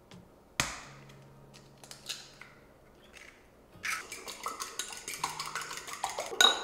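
An egg cracked sharply on the rim of a ceramic bowl about half a second in, then a fork beating eggs in the bowl, a fast run of clinks against the ceramic from about four seconds in, ending with a louder tap.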